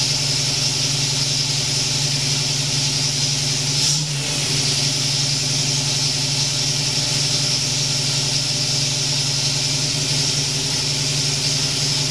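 1959 Chevrolet Corvette's 283 V8 idling steadily, with a brief dip about four seconds in.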